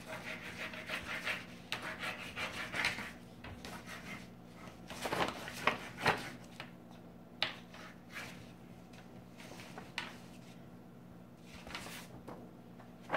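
Wax crayon scribbling on paper laid on a wooden table: quick scratchy back-and-forth strokes, busiest in the first few seconds. Then the paper sheet is slid and handled, with a few sharp taps.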